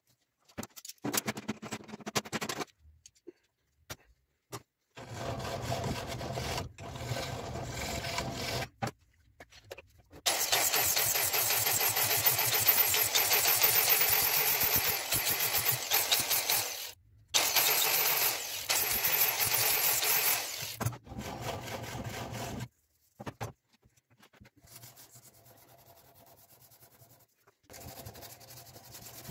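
Ronix 1050 W angle grinder with a sanding disc grinding down walnut knife-handle scales, in several runs that start and stop, the longest lasting about seven seconds. Near the end there is a much quieter rubbing.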